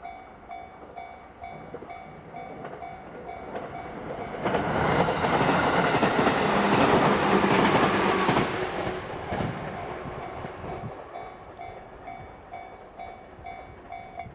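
A Japanese level-crossing warning bell ringing a steady repeating ding while a JR Ryomo Line electric train passes over the crossing. The train is loudest from about four and a half to nine seconds in, with wheel clatter over the rail joints. The bell keeps ringing as the train noise fades.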